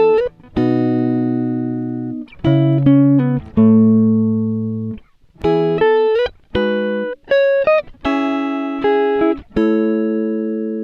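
Background music: guitar chords struck one after another, each left to ring and fade, some sliding in pitch as they start.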